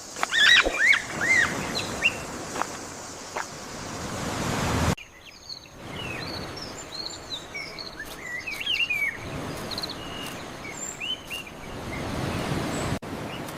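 Small birds chirping over steady outdoor background noise, with a low swell that builds and then cuts off abruptly about five seconds in and again near the end.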